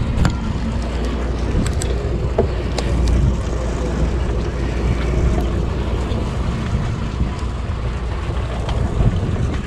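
Steady low rumble of a sportfishing boat's engine, with wind buffeting the microphone. A few sharp clicks come in the first three seconds.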